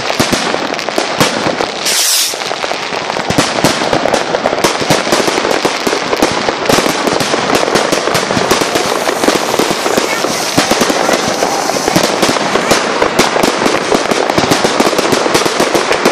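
Fireworks going off in a dense, continuous barrage: aerial shells bursting with many overlapping bangs and pops every second, and a brief hiss about two seconds in.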